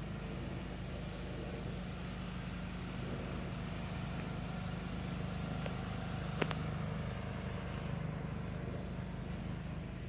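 Steady drone of a jet wash (pressure washer) engine running without a break, with a single sharp click a little past six seconds in.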